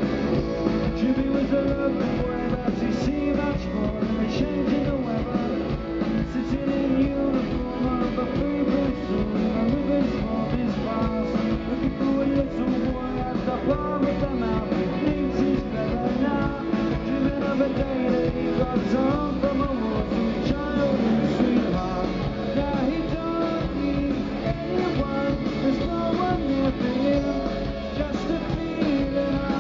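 Live rock band playing at full tilt: drum kit, electric bass and electric guitars.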